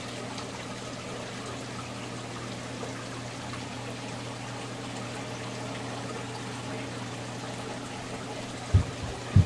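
Saltwater aquarium water trickling and pouring steadily, over a constant low hum. Two short low thumps come near the end.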